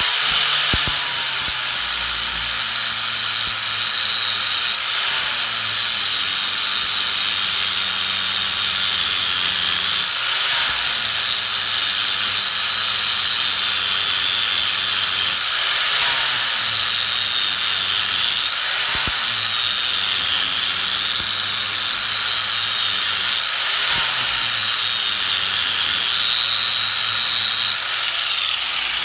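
Grinder with a flap wheel grinding the steel bottom of a strut, taking off a little metal so the CV axle clears at full droop. It runs without stopping. Its whine drops each time it bites into the metal and climbs back again, every few seconds.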